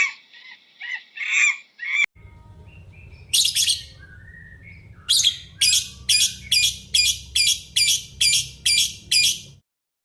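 Bird chirping in short high calls. After a cut, a low hum sits underneath, and near the end comes an even run of about ten sharp chirps, roughly two a second.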